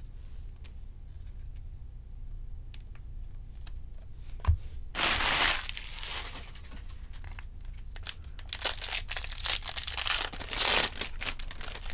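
Foil wrapper of a 2020 Topps Series 2 jumbo baseball card pack being torn open and crinkled, in bursts from about five seconds in and most busily near the end. Before that, faint clicks of cards being handled and a soft thump about four and a half seconds in.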